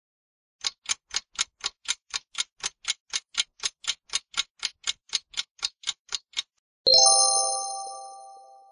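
Quiz countdown-timer sound effect: a clock ticking evenly, about four ticks a second, for around six seconds. Then a bright chime of several tones that rings out and fades over about two seconds, marking the end of the time and the reveal of the correct answer.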